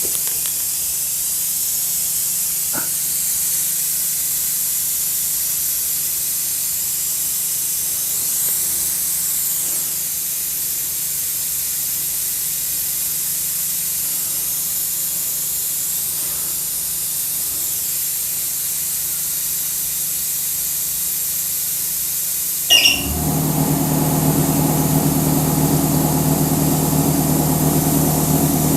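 Oil extractor tool hissing steadily as it sucks the remaining oil out of a CVT torque converter. About 23 s in, a click and then a machine starts up and runs with a steady hum over the hiss.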